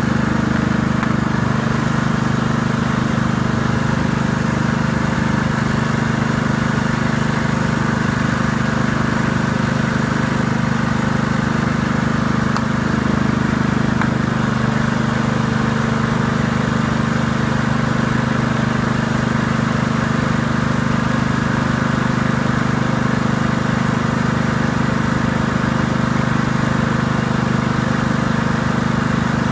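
Ride-on lawn mower engine running steadily at a constant note, with no change as the cutting-deck engagement knob is pulled: no sign of the deck's blades engaging, the deck engagement problem the machine has.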